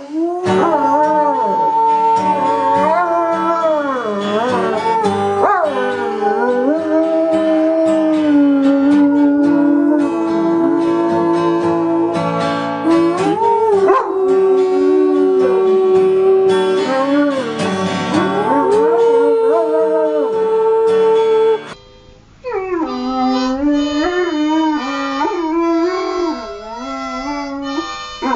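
Dogs howling in long, wavering notes that slide and hold, with music under the first part. A new howling dog comes in after a brief break about two-thirds of the way through.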